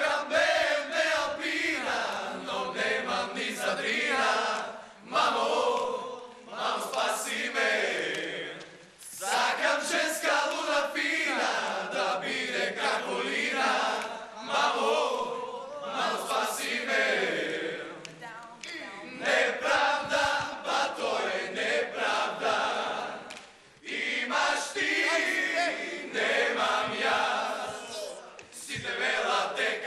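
A group of young men singing a song together without accompaniment, in phrases with short breaks between them.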